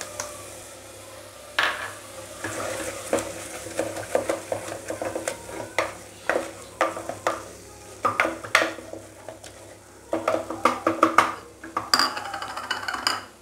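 Wooden spatula stirring turmeric and curry leaves into a frying tomato-onion masala in an aluminium pressure cooker, with irregular scrapes and knocks against the pot and a light sizzle.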